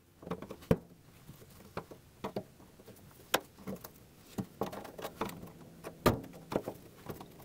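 Irregular metal clicks, taps and scrapes from a hand tool working the tabs of the fuel level sender's locking ring on a Triumph Spitfire's fuel tank. Three sharper knocks stand out: one under a second in, one midway and one near the end.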